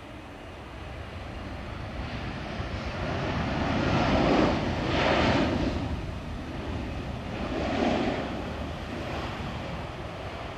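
Airbus A320-214's CFM56 jet engines running as the airliner moves past on the runway. The noise swells to its loudest about four to five seconds in, swells again near eight seconds, then eases off.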